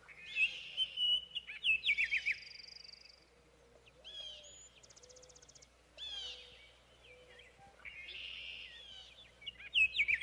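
Songbirds singing: short phrases of quick whistled notes and rapid trills, repeated every second or two.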